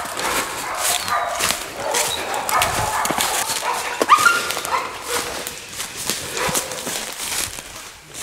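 Hog-hunting dogs barking as they hold a wild hog at bay, with one louder bark about four seconds in. Footsteps crunch and twigs snap through dry brush and leaf litter.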